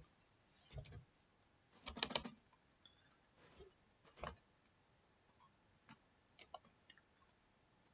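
Scattered keystrokes on a computer keyboard, a few irregular taps and short clusters with gaps between them, the loudest cluster about two seconds in.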